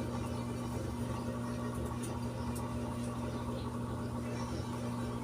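Steady low machine hum with an even hiss underneath, and a few faint clicks from handling parts.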